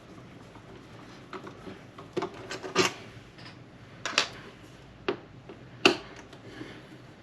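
Screwdriver work on the plastic case of a Tascam Porta Two cassette recorder: faint scraping and rubbing as screws are backed out, broken by about five sharp clicks and knocks of small parts against the casing, the loudest near six seconds in.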